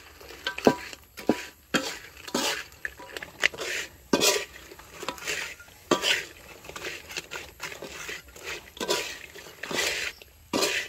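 Metal spatula scraping and knocking against a wok while stir-frying banana slices, in quick irregular strokes.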